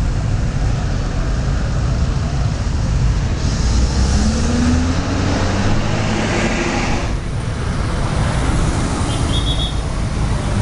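Bus engine running close by over a steady traffic rumble; its note rises briefly about four seconds in, with a hiss lasting about three seconds.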